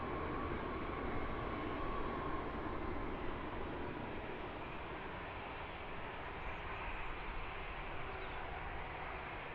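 Airbus A400M Atlas's four turboprop engines running, a steady wide noise with a thin high whine that fades out about two seconds in. The sound eases off slightly toward the end.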